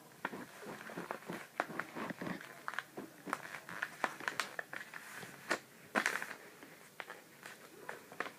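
A sheet of paper being handled and folded by hand: irregular crinkling and crisp crackles as it is creased, with a louder burst of rustling about six seconds in.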